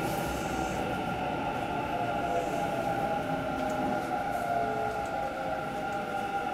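Hanshin 1000 series electric train running slowly alongside a station platform, heard from inside the car: its inverter and traction motors give a whine of several steady tones over a low rumble of wheels on rail, easing slightly as the train brakes to stop.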